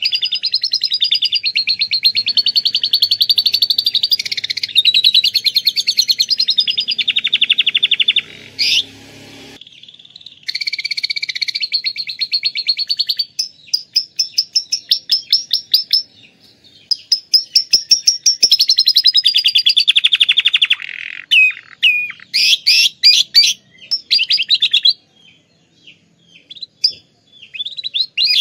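Domestic canary singing long, very fast trills and rolls, with phrases copied from lovebird song. The song breaks briefly about ten seconds in, then turns choppier, with short pauses near the end.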